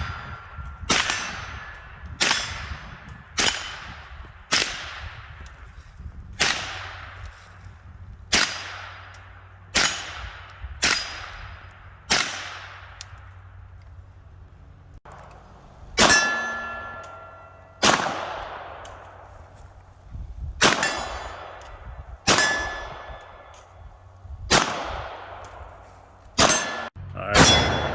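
About eighteen handgun shots at steel targets, one to two seconds apart with a pause of a few seconds midway. Each shot is a sharp crack followed by a long ringing clang that dies away.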